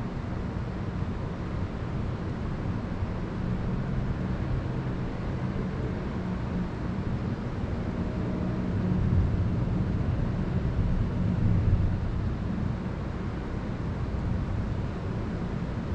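Steady low rumbling outdoor noise of wind and distant city traffic, swelling louder briefly about nine and twelve seconds in.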